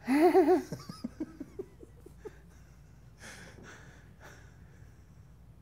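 A man's loud burst of laughter that trails off into a run of short, fading chuckles, followed about a second later by a couple of breathy exhales.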